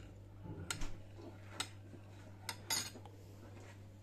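Utensils and dishes clinking: four or so sharp clicks spread over a few seconds, the last a short clatter near the end, over a steady low hum.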